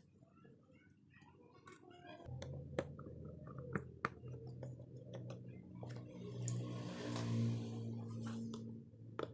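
Light clicks and taps of small tools handling phone parts. A low steady hum joins about two seconds in and grows louder with a hiss near the end.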